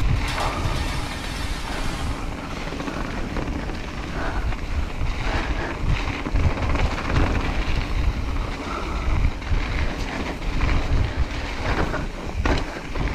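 Wind buffeting the microphone and a mountain bike's tyres rolling fast over a dirt trail: a steady rushing noise with a strong low rumble and occasional clatter over bumps.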